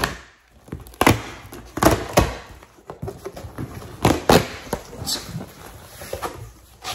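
A cardboard box being opened and its contents handled: several thuds and knocks, the loudest about one, two and four seconds in, with crinkly rustling of packaging between.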